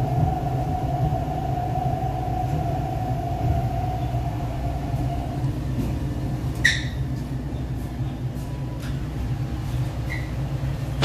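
MTR East Rail Line R-Train electric train, heard from inside the car as it runs into a station and comes to a stop: a steady rumble with a steady motor tone that dies away about halfway. A short, sharp high-pitched noise comes about two-thirds in.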